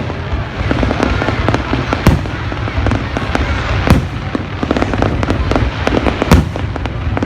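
Aerial fireworks bursting: three loud booms about two seconds apart, over a continual crackle of smaller pops and a steady din.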